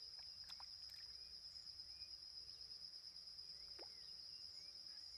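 Insects, crickets by their sound, trilling steadily as one high, unbroken tone. A few faint short chirps are scattered through it.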